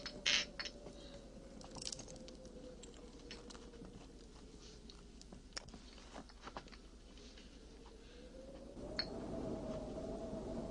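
Quiet, scattered creaks and clicks from the getaway coach as it teeters on a cliff edge, over a faint steady hum that swells slightly near the end.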